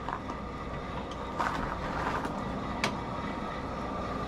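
Forge blower running with a steady whir and a faint high whine, while the iron heats in the fire; a few light metallic ticks sound now and then.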